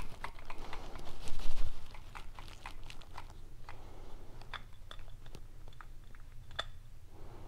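Light clicks and rattles of a Honda Grom's six-disc clutch pack, its friction discs and steel plates, being shifted and seated by hand in the clutch basket. A louder handling bump comes about a second in.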